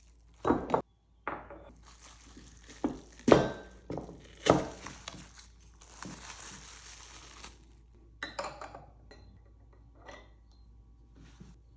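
Kitchen utensils knocking and scraping against dishes: a few sharp knocks in the first five seconds, scraping between about two and seven and a half seconds in, then a quick run of light clinks a little after eight seconds.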